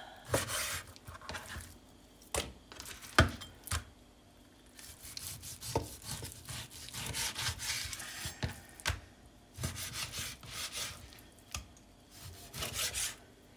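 Knife cutting raw veal into small chunks on a cutting board: irregular sawing strokes through the meat, with occasional knocks of the blade against the board, the sharpest about three seconds in.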